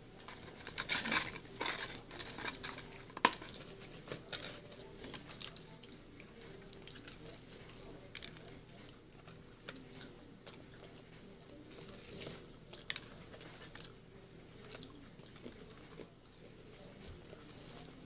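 Close-up chewing and biting of fried food: French fries and a breaded chicken finger, with small crunches and wet mouth sounds, busiest in the first few seconds and quieter after.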